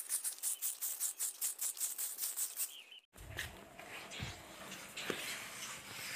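Fast, even, high-pitched insect chirping, about six pulses a second, cut off suddenly about three seconds in. After that come rustling and a few dull thumps from the phone being handled.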